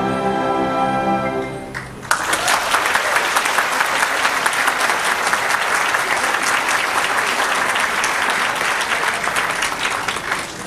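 Orchestra holds its final chord, which stops just under two seconds in; the audience then starts applauding all at once, and the clapping carries on and eases off near the end.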